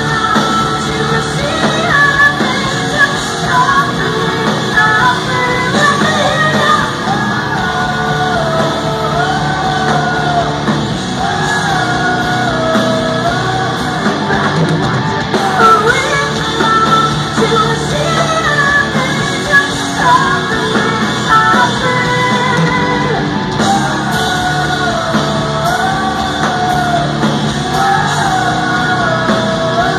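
Live rock music: a woman singing over electric guitars and drums, heard from among the audience.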